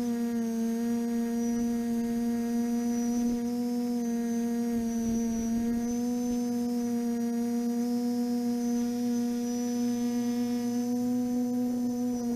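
TBS Discovery quadcopter's brushless motors and propellers humming at a steady pitch, heard through the onboard camera, the pitch wavering slightly as the throttle shifts.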